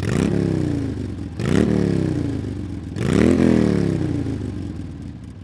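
An engine revved three times, about a second and a half apart, each rev rising quickly in pitch and then falling slowly as it dies away.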